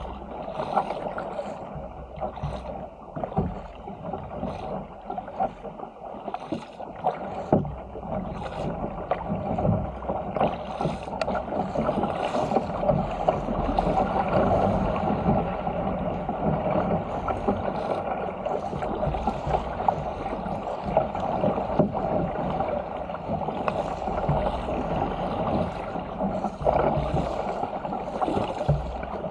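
Sea water rushing and splashing along the hull of a Stealth 475 fishing ski as it is paddled downwind through chop, with frequent short splashes from paddle strokes and waves. The rush grows louder about ten seconds in as the ski picks up speed.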